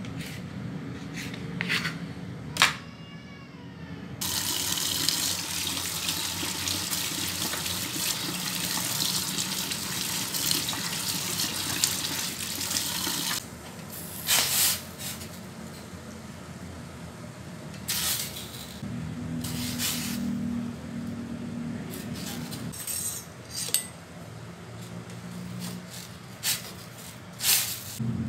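Water running steadily for about nine seconds, starting about four seconds in, preceded by a couple of sharp knife knocks on a cutting board and followed by scattered clatters.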